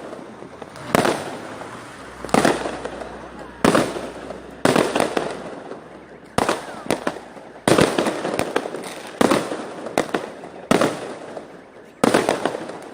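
Fireworks bursting overhead: a sharp bang about once a second, around ten in all, each dying away with echo.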